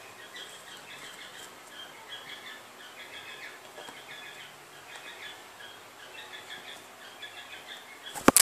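Rainbow lorikeet chattering softly in a run of quick, high twitters, with a sudden loud clatter near the end.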